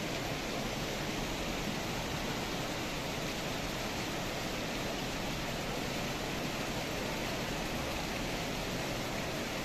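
Steady rushing water noise from heavy monsoon rain and runoff, even throughout with no distinct events.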